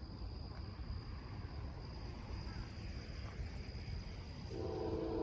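Insects buzz steadily over a low rumble; about four and a half seconds in, a Norfolk Southern freight locomotive's air horn begins a loud, held chord of several notes.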